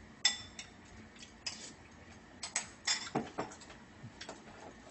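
Ceramic Chinese soup spoon clinking and scraping against the sides of a metal pot of soup as it is stirred and scooped for a taste. There are about a dozen sharp, irregular clinks, the loudest a ringing clink just after the start.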